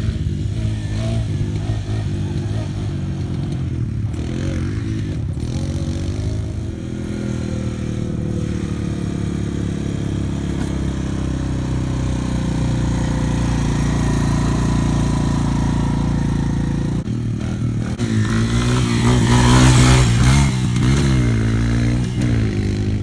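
Honda 250 four-wheeler engine running as it is ridden, its note rising and falling as the throttle is opened and eased off. Near the end an engine revs up and down several times, louder.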